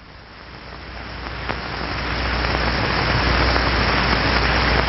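Wind machine blowing a steady rush of air with a low hum underneath, swelling over the first two seconds or so and then holding steady.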